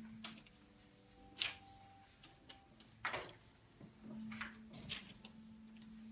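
Paintbrush strokes on a painting board: a few short, scratchy swishes, the loudest a little after three seconds in.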